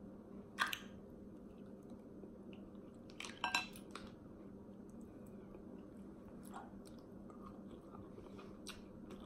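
Snow crab leg shells cracking and the meat being picked out and chewed: a few sharp cracks and clicks, the loudest about three and a half seconds in, over quiet close-up chewing and a faint steady hum.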